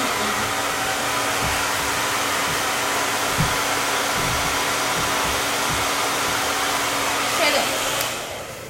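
Handheld blow dryer blowing steadily with a constant hum, switched off near the end and winding down.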